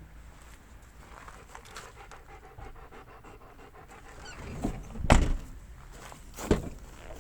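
A dog panting in quick, even breaths. Several loud thumps come in the second half, the loudest about five seconds in.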